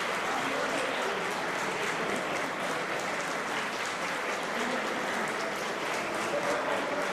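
Steady applause from a group of people clapping.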